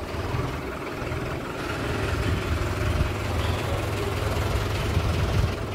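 Tractor engine running steadily with a low rumble.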